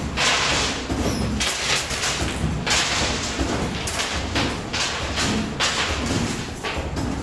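Coin pusher machine running: the pusher shelf sliding back and forth under a steady low rumble, with a quick, irregular run of clattering and jingling from coins and chips.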